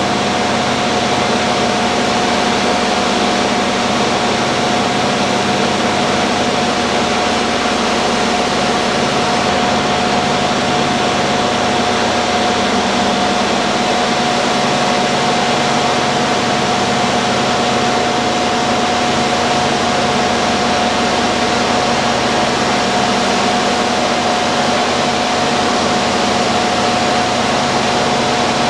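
Steady cockpit drone of a Lockheed Super Constellation's four Wright R-3350 radial piston engines and propellers in flight, with a steady high tone over it and a slow throb in the low end.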